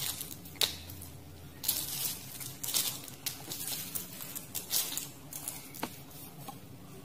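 Small pieces of bar soap broken and stirred by hand on a plastic sheet. Irregular short snaps and rustles, with the plastic crinkling under the hand.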